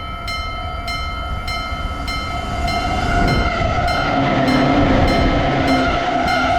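Japanese railroad crossing alarm ringing, its bell striking steadily about every 0.6 seconds. A train approaches and grows louder from about halfway in, with a low steady tone joining about four seconds in.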